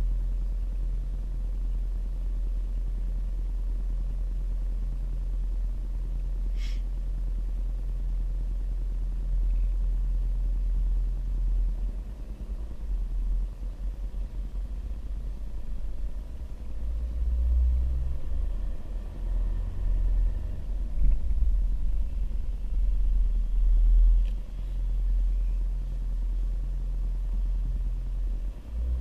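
An engine running with a low, steady rumble. From about twelve seconds in its level rises and falls unevenly, and there is a single brief click about a third of the way through.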